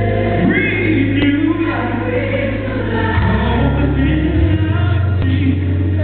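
Gospel choir song over a deep, held bass line that changes note a few times.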